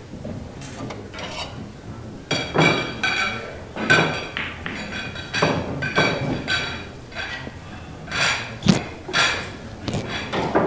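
Pool balls clacking against one another in a quick, irregular run of sharp clicks, each with a short bright ring.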